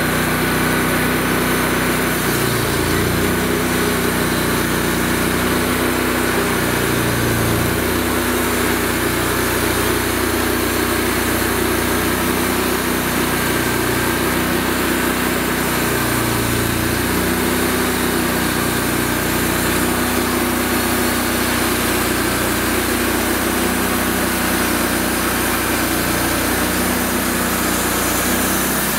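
Wood-Mizer LX150 portable bandsaw mill running steadily, its engine driving the band blade as the saw head cuts along a cherry log.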